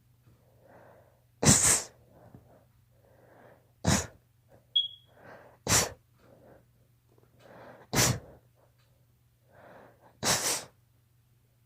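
A girl sneezing five times in a row, about two seconds apart. Each sneeze is a sudden loud burst after a quieter breathy intake. These are allergy sneezes.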